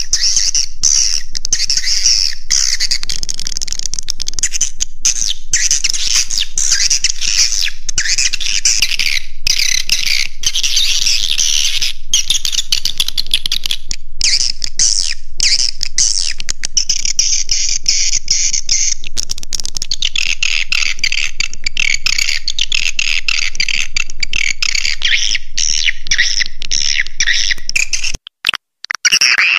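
Dense, continuous twittering chirps of swiftlets: a swiftlet lure-call recording of the roosting kind, played to draw swiftlets into a nest house and make them stay. About a second and a half before the end it breaks into short, choppy snatches with silent gaps.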